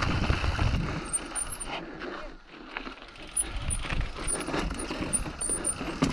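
Mountain bike riding down a rocky trail: tyres crunching over rock and loose stones, with the bike rattling and knocking over the bumps. It goes quieter for a moment about two seconds in, then the clatter picks up again as the bike drops onto rougher rock.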